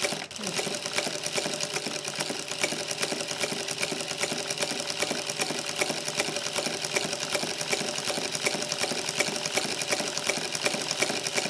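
Juki DDL-900B industrial lockstitch sewing machine running at a steady speed with a ruffler presser foot attached, its rapid even stitching rhythm pleating a ribbon with a pleat every four stitches.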